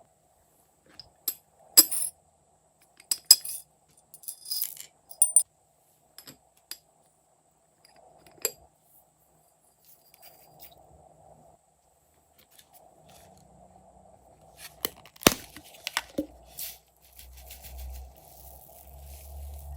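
Slime being handled and mixed, giving scattered sharp clicks and crackles, then a low squelching in the last few seconds.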